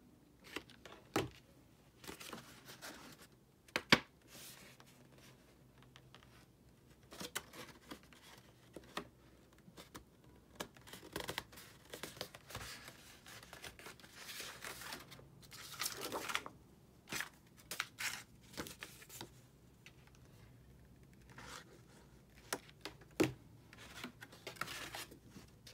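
Stiff cardstock paper petals rustling and scraping in bursts as they are handled and pressed into place on a paper rose, with a few sharp taps, the loudest about four seconds in.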